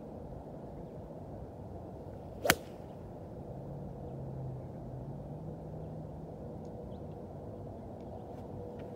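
Golf club striking a golf ball off turf in a single full swing: one sharp crack about two and a half seconds in, over steady low background noise. A faint low drone follows for a few seconds.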